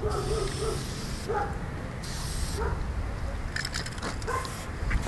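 Aerosol spray-paint can hissing in short bursts while a dog barks several times. A few sharp clicks come near the end.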